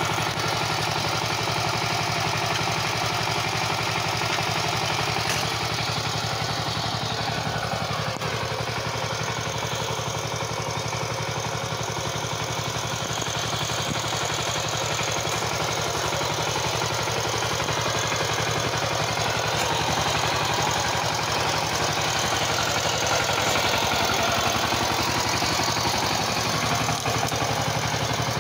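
The 12-horsepower single-cylinder diesel engine of a walk-behind power tiller running steadily under way, with a rapid, even firing beat.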